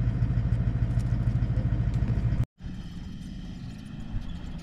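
An engine running with a steady, rapid low pulse, which cuts off abruptly about halfway through. It gives way to much quieter background noise.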